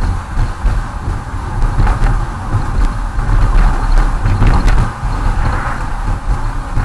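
Car driving on a street, heard from inside the cabin through a dash camera: a steady low rumble of engine and tyres as the car picks up speed.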